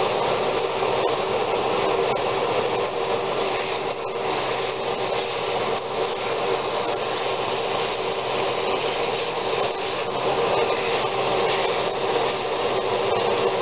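Steady whoosh of an overhead range hood fan running, over the sizzle of a beef chuck roast browning in hot oil in a skillet.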